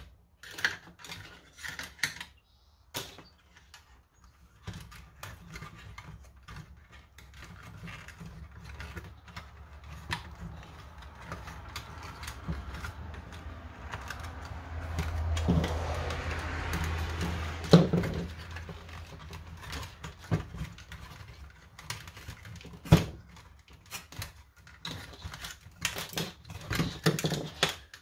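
Scattered plastic clicks and knocks from hands fitting wires and parts into the opened plastic shell of a Nerf Vulcan toy blaster. A stretch of low rubbing noise runs through the middle, and the sharpest click comes a little past halfway.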